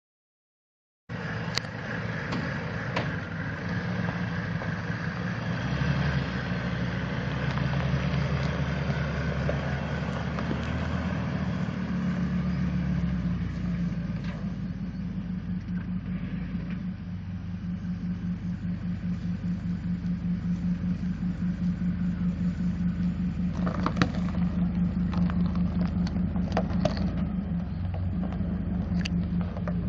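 Ford F550 Super Duty truck's 6.8-litre V10 gas engine running steadily at an even idle. A few light clicks come near the end.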